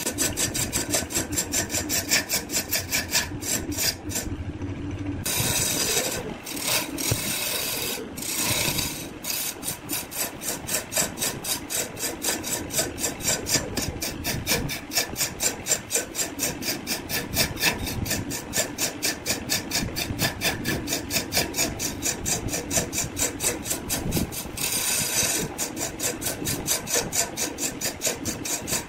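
Wood lathe spinning a wooden vase while a hand-held turning tool cuts its surface: a rasping scrape in rapid, regular pulses.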